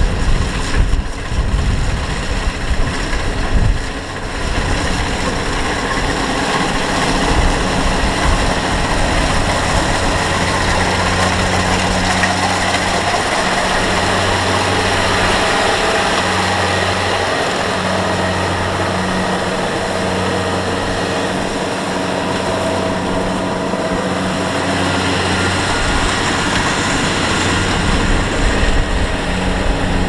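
Kubota DC-70 Plus combine harvester running steadily while harvesting rice: a constant diesel engine hum mixed with the noise of its cutting and threshing machinery.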